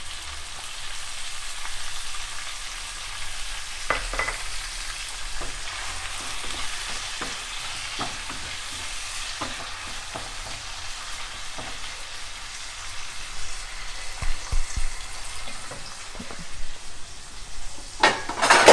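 Onion, ginger-garlic and tomato masala frying on a high flame: a steady sizzle, with a spoon scraping and knocking against the pan now and then and a louder run of knocks near the end.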